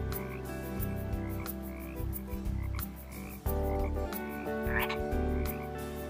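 Frogs croaking in a chorus, with short calls repeating over and over.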